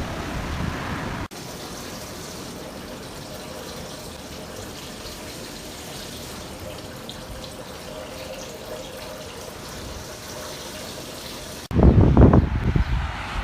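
Strong wind buffeting the microphone with a low rumble, cutting off abruptly after about a second to a steadier, quieter rush of wind noise; the loud buffeting returns suddenly near the end.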